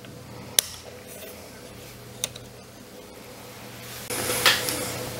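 Two sharp clicks, the first the loudest, then a louder stretch of clatter and handling noise near the end, over a steady low electrical hum.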